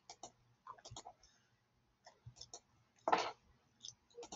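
Computer mouse clicking: scattered, irregular light clicks as the mouse is worked. A short, louder noise comes about three seconds in.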